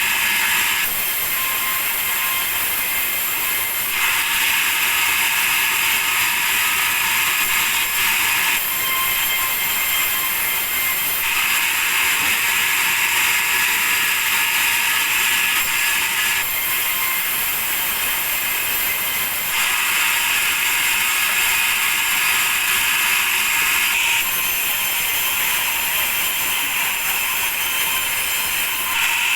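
Sawmill saw running through meranti timber: a loud, steady, high-pitched mechanical noise whose tone shifts every few seconds.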